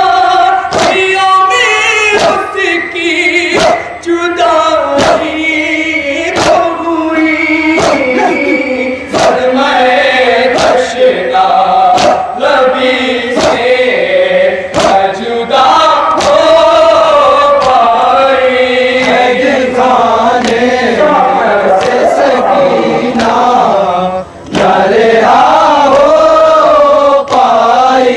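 Nauha, a Shia mourning chant, sung by male voices over microphones with a group of men chanting along. Hands slapping chests (matam) keep a steady beat of about three slaps every two seconds.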